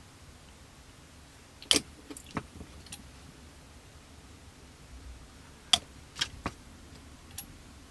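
Handling noise from small plastic parts: sharp clicks and taps as a plastic model fuselage half and a cement bottle's brush cap are handled, in two clusters, one a little under two seconds in and one near six seconds in.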